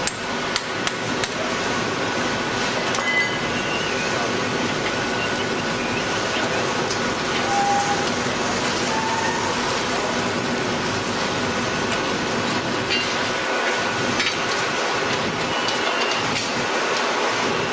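Steady industrial machinery noise from a hot coil-spring winding machine, with sharp metallic clinks in the first second or so.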